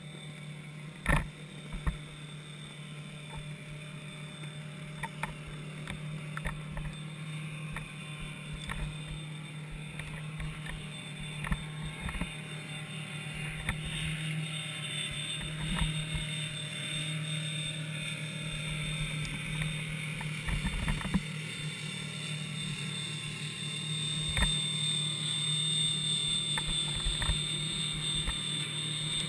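Underwater ambience heard through a submerged camera's housing: a steady low hum and a thin high whine that grows stronger later on, with scattered clicks and knocks, a sharp knock about a second in being the loudest.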